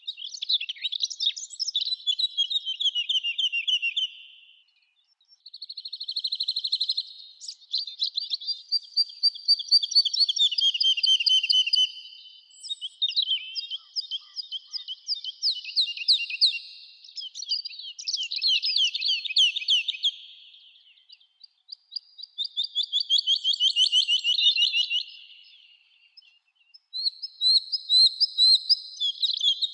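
A songbird singing high-pitched, rapid trills in phrases a few seconds long, with short pauses between them.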